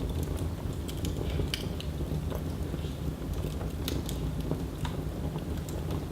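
Wood fire burning in a fireplace, crackling with irregular sharp pops and snaps over a steady low rush of flame.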